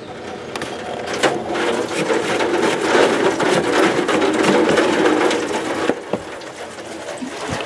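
Plastic coolant expansion-tank cap on a BMW E30 being unscrewed by hand, a loud rasping crackle of threads and grip with many small clicks, easing off about six seconds in as the cap comes free.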